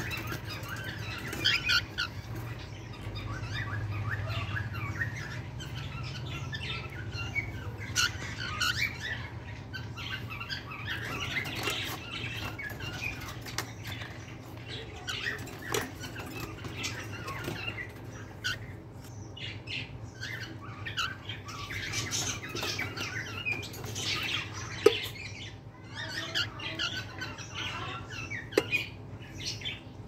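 Cockatiels in a nest box giving many short chirps and raspy squawks, with a low steady hum underneath.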